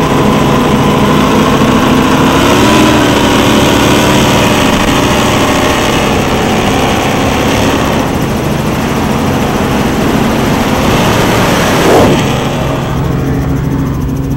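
Engines of Donzi 43 ZR and 38 ZR powerboats running at speed, with their pitch rising briefly a couple of seconds in. About twelve seconds in there is a short loud sweep. After it the sound turns to a steadier low drone of helicopter engine and rotor.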